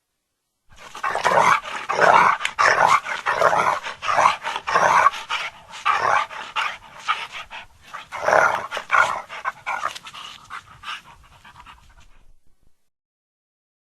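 Rhythmic, breathy panting like a dog's, a few breaths a second, fading out toward the end.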